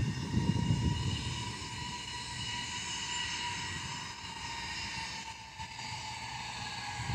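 Jet airliner's turbofan engines running, a high steady whine that drifts slightly in pitch over a low, fluctuating rumble.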